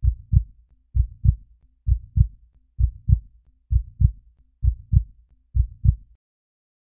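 Heartbeat sound effect: pairs of deep, low thumps (lub-dub) repeating about once a second, seven beats in all, cutting off abruptly about six seconds in.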